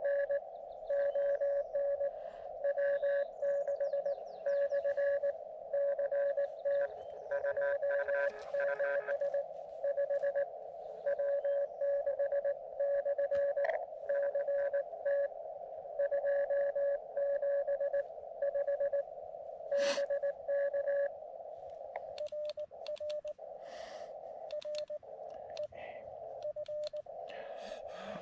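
Morse code (CW) from a portable amateur radio transceiver: a single tone keyed on and off in dots and dashes. About 22 seconds in, the keying turns fainter and noisier, with a few clicks.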